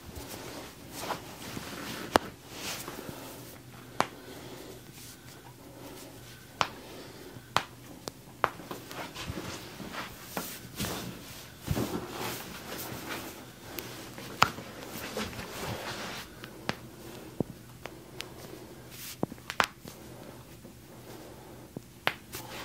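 Hands working on a patient on a treatment table: soft rustling of skin, clothing and table cover, broken by about ten sharp, separate clicks and taps spread at irregular intervals.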